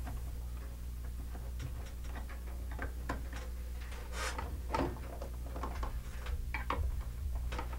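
Screwdriver turning a screw that fastens a plug-in transformer to a wall-outlet faceplate: small, irregular ticks and clicks over a steady low hum.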